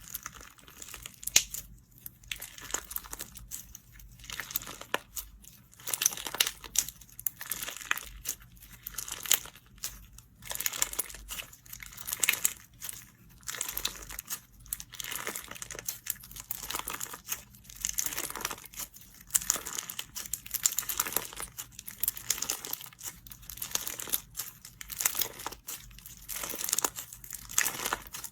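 Slime being squeezed and stretched by hand, giving off crinkly, crackling pops in repeated surges about once a second.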